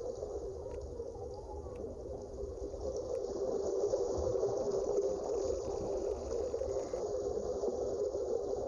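Underwater ambience: a steady watery rush with a low rumble underneath, growing a little louder about three seconds in.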